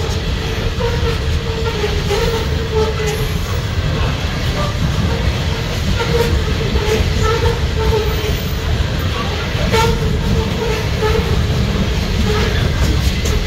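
Loaded coal train's open-top hopper cars rolling past close by, with a steady low rumble of wheels on rail. A wavering squeal comes and goes over it, and sharp clicks sound now and then.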